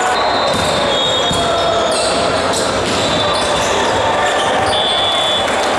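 Steady din of a large sports hall full of volleyball games: overlapping voices, short high shoe squeaks on the hardwood floor, and volleyballs being hit and bouncing every so often.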